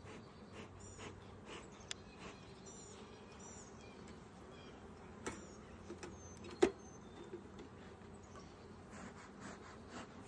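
Faint outdoor ambience: small birds chirping in short, repeated calls over a low buzz of honey bees around the hives. A few sharp clicks break it, the loudest about two-thirds of the way through.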